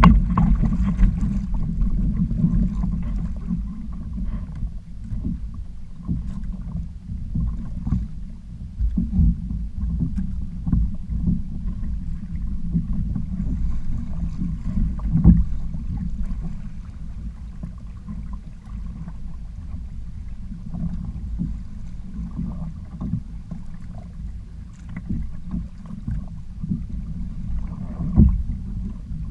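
Wind rumbling on the microphone and water washing against the hulls of a kayak trimaran under sail. A few sharp thumps stand out, one about halfway through and one near the end.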